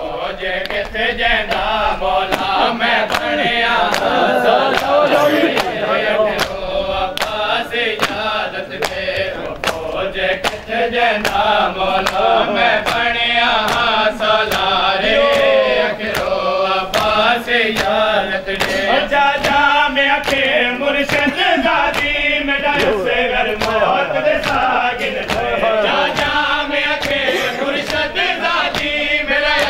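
A group of men chanting a mourning noha together, over a steady beat of open-handed chest slaps (matam) about twice a second.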